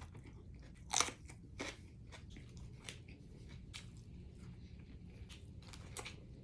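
Close-up eating sounds: crunchy bites and chewing of tacos, sharp crackly mouth noises at irregular moments, the loudest about a second in, over a low steady hum.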